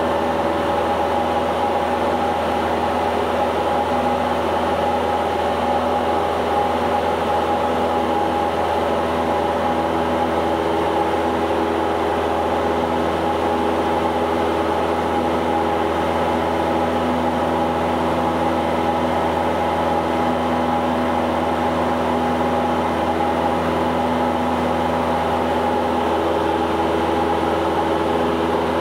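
Cessna 172's piston engine and propeller droning steadily, heard inside the cabin in flight, with a constant pitch throughout.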